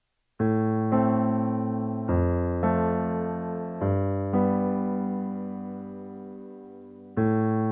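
Soft electric piano music: a slow run of chords, each struck and left to ring, the last one fading for about three seconds before a new chord comes in near the end.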